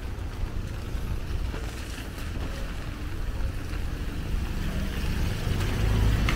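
Street noise with a motor vehicle's engine drawing closer, its low rumble growing louder over the last couple of seconds.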